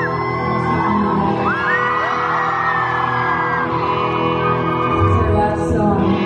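Live band playing, with electric guitar under a singer holding long, gliding notes, heard in the reverberant space of a large concert hall.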